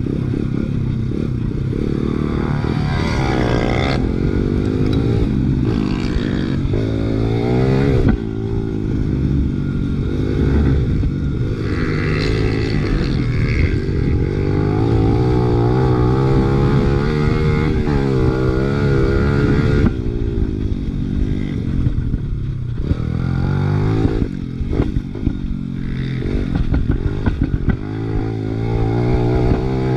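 Honda XR100R's big-bore single-cylinder four-stroke engine revving as the pit bike is ridden hard, its pitch climbing and dropping over and over with throttle and gear changes.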